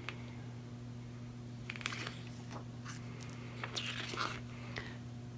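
Pages of a glossy photo book being handled and turned: a handful of short, scattered paper rustles and crinkles over a steady low hum.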